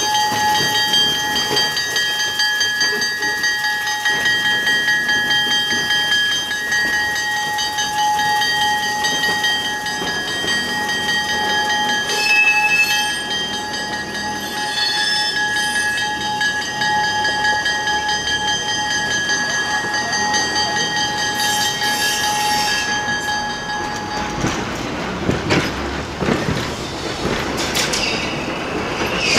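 Century-old Yakima Valley Transportation steeple-cab electric locomotive No. 298 running slowly on the yard track, a steady high whine over the rumble of the wheels. Near the end this gives way to an antique Brill single-truck trolley rolling on the rails with uneven knocks and clatter.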